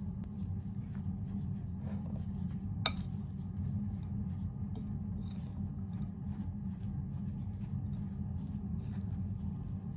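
A metal spoon stirring grated pumpkin and sweet potato with egg and flour in a bowl: quick soft scraping strokes against the bowl, with one sharp clink about three seconds in. A steady low hum runs underneath.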